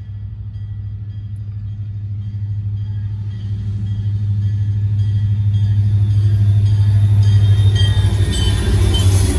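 Canadian National SD40-2W and SD60 diesel-electric locomotives approaching and passing a grade crossing, heard from inside a car: a low rumble that grows steadily louder and peaks as the engines go by near the end.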